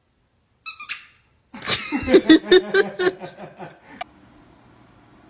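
A dog giving a short, high-pitched squeaky whine about a second in, then a couple of seconds of loud, choppy vocalizing that stops abruptly.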